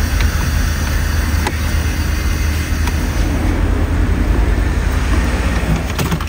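Steady low mechanical hum with a hiss over it. A few light clicks from a screwdriver working the plastic dash trim, one about a second and a half in and several near the end.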